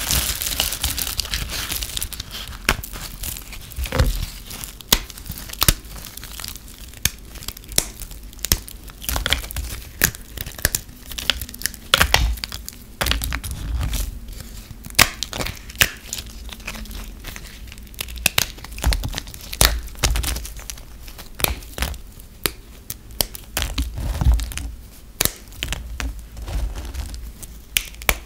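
Brittle, dry recycled soap crushed and broken apart by hand: an irregular run of crisp snaps and cracks over a steady crumbling crunch.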